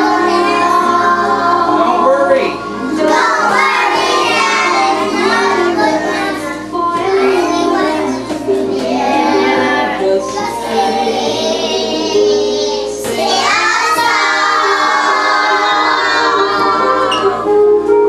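A group of young children singing a song together in chorus, phrase after phrase.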